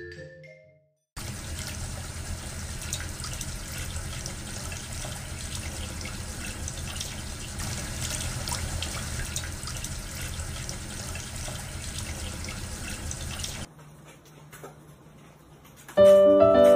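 Electric pet water fountain running, its water trickling steadily for about twelve seconds, with faint drips in it; it stops abruptly near the end.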